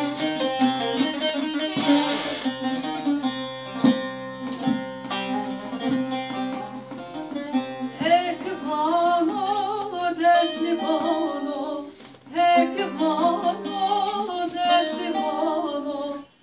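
Bağlama, the long-necked Turkish saz, being plucked in a folk tune; about halfway through a woman's singing voice comes in over it, with a short break near three-quarters of the way.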